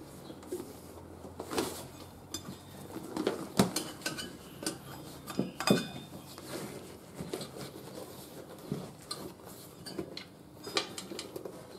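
A rubber inner tube being worked by hand into a knobbly tyre on a spoked motorcycle wheel: rubbing and scuffing with scattered irregular knocks and clinks against the rim and spokes, the loudest about three and a half and five and a half seconds in.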